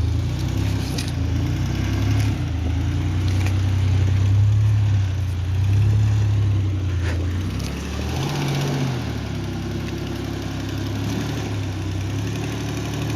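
Off-road 4x4's engine working at low revs while it crawls up rocks, its note rising and falling with the throttle and rising briefly about eight seconds in. A few sharp knocks can be heard over it.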